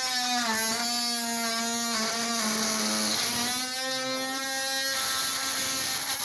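Oscillating multi-tool running with a steady high-pitched buzz, its pitch sagging slightly a couple of times as the load on the blade changes.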